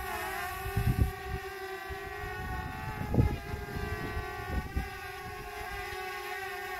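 Quadcopter drone hovering, its propellers giving a steady whine of several tones that dips briefly in pitch near the start. Gusts of wind buffet the microphone about a second in and again around three seconds in.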